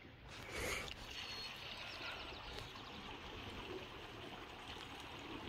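Seawater lapping and trickling among rocks at the shoreline, with a louder wash about half a second in.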